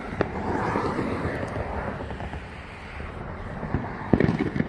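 Distant fireworks popping, a few sharp cracks close together about four seconds in, over a steady rushing outdoor background.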